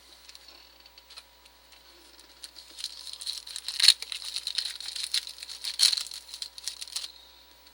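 Foil wrapper of a trading-card pack crinkling and tearing as it is ripped open. The crackling builds about two and a half seconds in, peaks twice and stops suddenly about a second before the end.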